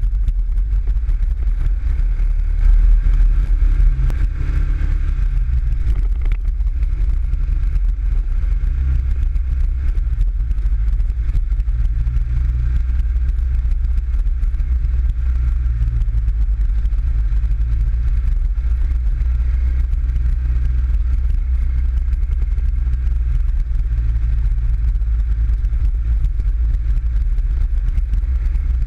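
PGO 500i off-road buggy's engine running steadily as the buggy drives along a rough trail, heard from on board as a low rumble, with a brief louder surge about three seconds in.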